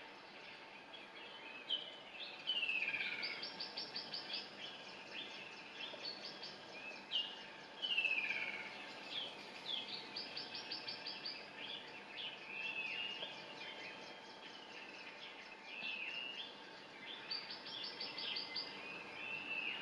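Several birds singing and calling over a steady hiss: whistled phrases that slide down in pitch, fast high trills that recur every several seconds, and scattered short chirps.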